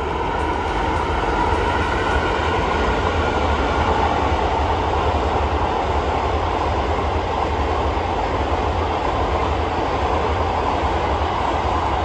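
Indian Railways passenger train hauled by an electric locomotive passing by: a steady, loud rumble of wheels and coaches on the rails.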